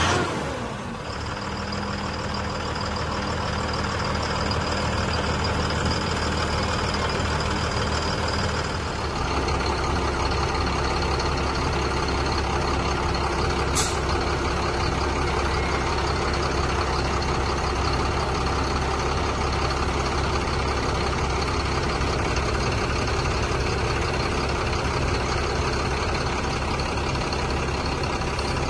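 Diesel engine of a HOWO 375 hp dump truck running steadily. At the start it falls back from a brief rev. About nine seconds in its sound grows fuller and louder in the low end, and a single sharp click comes a few seconds later.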